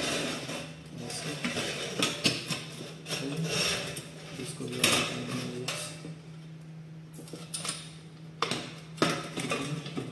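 Thin sheet-metal cable trunking clattering and clinking against itself and the tabletop as its notched sections are folded at the cuts and fitted together into a bend, in a string of sharp irregular knocks.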